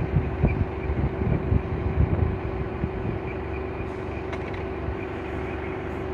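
A steady low mechanical hum runs under irregular low rumbling and thumps.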